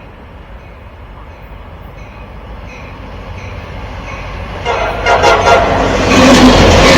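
CSX diesel locomotive leading a loaded ballast train as it approaches, its engine rumble growing steadily louder. About two-thirds of the way through, the locomotive's horn sounds and keeps sounding as the train draws close.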